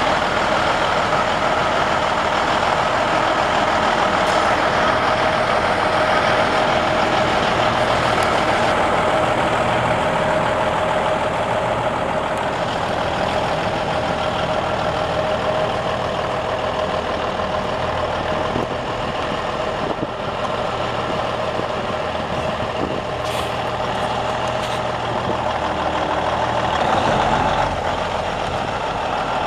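A 1997 Kenworth T600 semi tractor's Cummins N14 inline-six diesel running steadily as the truck drives slowly, with a steady whine over the engine.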